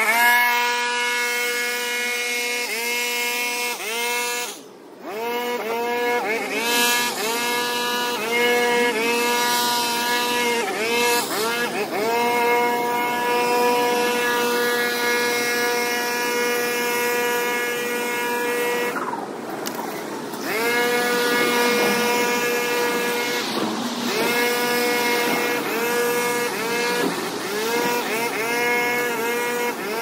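A small high-revving gas engine, throttled up and down again and again, its pitch sagging and climbing back every second or two. It briefly drops away twice, about five seconds in and about two-thirds of the way through.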